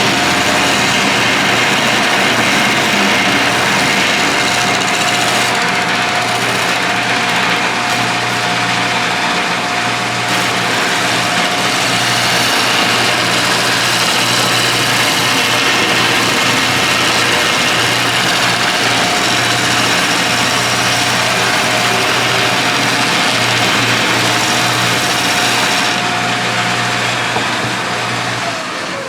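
Wood lathe running steadily with a constant whine and hum under a rushing hiss of work on the spinning bowl. Near the end it is switched off, and its pitch falls as it spins down.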